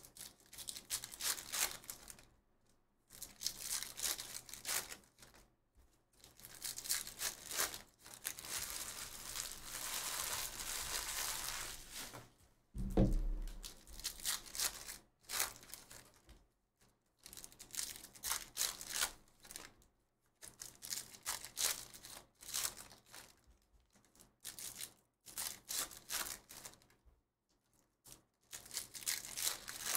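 Foil trading-card pack wrappers being torn open and crinkled by hand, in repeated short bursts of rustling, with cards slid and flicked against each other in between. A single dull thump a little before halfway through is the loudest sound.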